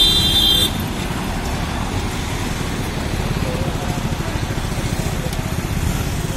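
Mobile crane's diesel engine running steadily with a low throb while it holds a small shop cabin aloft. A high steady tone sounds at the start and cuts off within the first second.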